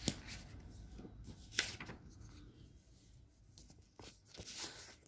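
Faint handling noise: soft rustling with a few light clicks and knocks as a phone and paper are moved about by hand.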